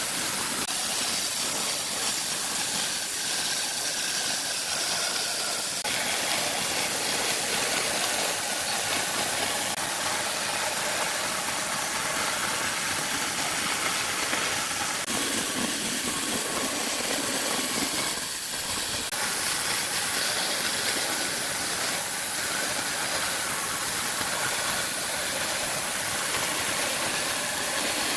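Bandsaw running and cutting a curve through a thick softwood panel: a steady hiss of the blade in the wood over the machine's hum, easing briefly about two-thirds of the way through.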